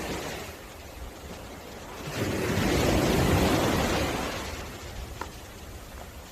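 Ocean surf washing onto the beach: one wave swells up about two seconds in, peaks, and drains away a couple of seconds later.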